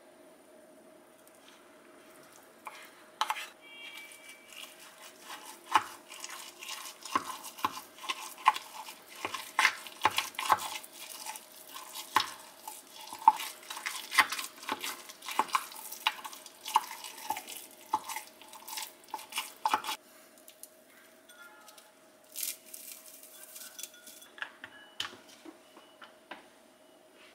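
Wooden spoon stirring and mashing a thick chicken breast and potato mixture in a glass container, with repeated knocks and scrapes of the spoon against the glass. The stirring stops about twenty seconds in and is followed by a few soft clinks of bowl handling.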